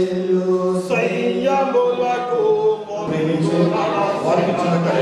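Voices singing a hymn without instruments, holding long notes, with short breaks about a second in and again near the middle.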